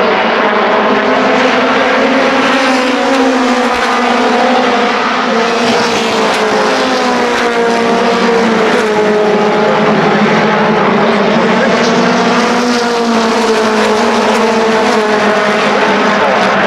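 Several race car engines running together on the oval track. Their pitches rise and fall and overlap in a continuous loud drone.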